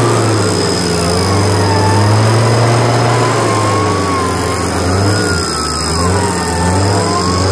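Off-road 4x4 running steadily under a whine that slowly wavers up and down in pitch.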